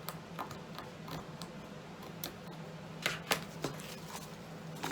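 Scattered light clicks and taps from ribbon being handled on a work surface, with a short cluster of sharper clicks a little after three seconds, over a steady low hum.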